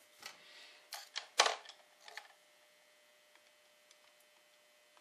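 A handful of sharp metallic clicks and knocks from handling the brass-framed 1851 Colt Navy replica revolver frame and a screwdriver, bunched in the first two and a half seconds, the loudest about a second and a half in.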